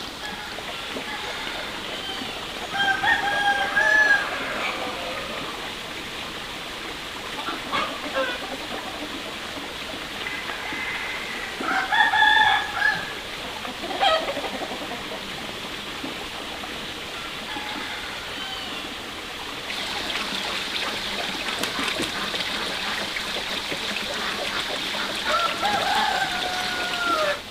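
A rooster crows three times, each crow lasting about a second, over a steady background rush.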